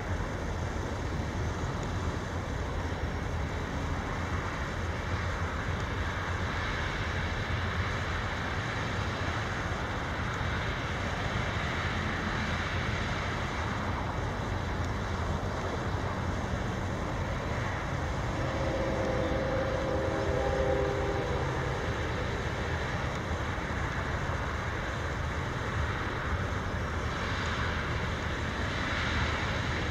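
Steady low rumble of a CSX freight train approaching out of sight, heard mixed with outdoor noise; a brief horn-like tone of several pitches sounds for about two seconds around two-thirds of the way through.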